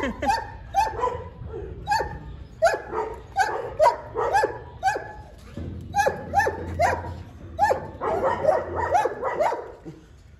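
Dog barking repeatedly in short, sharp barks, about one or two a second, coming close together near the end.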